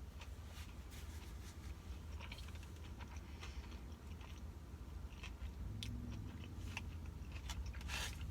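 A person chewing a crunchy sushi roll close to the microphone: irregular small crunches and wet mouth clicks over a steady low hum, with a short louder hiss near the end.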